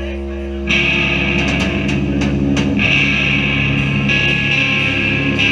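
Loud, distorted electric guitars of a live metal band holding a droning, ringing chord, jumping louder a little under a second in.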